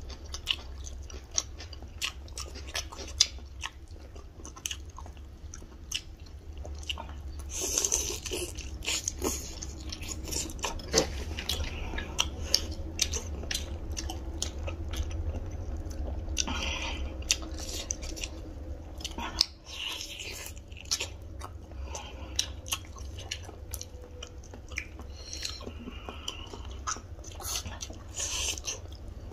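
Two people biting and chewing chicken curry and rice, with many short clicking and crunching mouth sounds, over a steady low hum.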